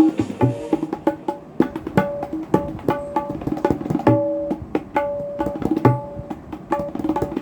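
Tabla playing the iPhone ringtone tune: a quick, even run of sharp ringing strokes with a few deep bass strokes mixed in.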